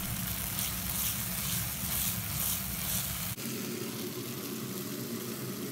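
Chicken and vegetables sizzling in sauce in a frying pan, the sizzle swelling in regular pulses as the mix is stirred, over a low steady hum. About three and a half seconds in the sizzle cuts off abruptly, leaving only a steady hum and a fainter hiss.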